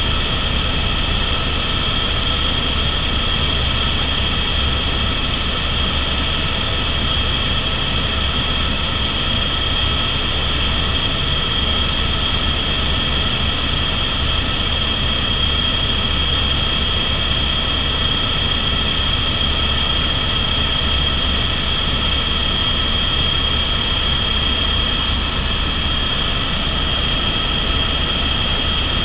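Airbus AS350 (H125) single-turbine helicopter in cruise flight, heard from inside the cabin: a steady high-pitched whine over a heavy low rumble and rushing air noise.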